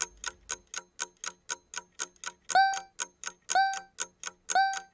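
Quiz countdown timer sound effect: a clock ticking about four times a second. Three short beeps sound a second apart in the second half as the count runs down.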